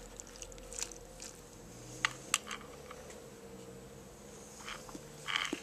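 Spaghetti sauce sizzling faintly in a small camp cook pot heated over a sterno can, with a couple of light clicks about two seconds in and a short noise near the end.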